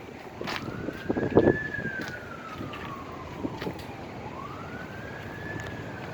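Emergency vehicle siren wailing, its pitch rising and falling slowly about every four seconds, over the rumble of a moving vehicle. Short knocks and rattles come through, with the loudest thump about a second and a half in.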